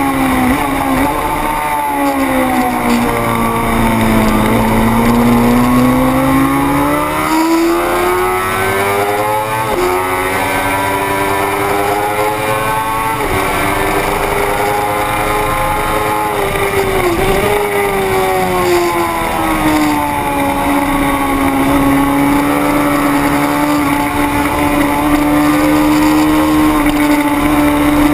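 600 cc racing motorcycle engine running at high revs, its pitch sinking and climbing several times as it slows for and drives out of corners. About ten seconds in the pitch drops suddenly, as at a gear change.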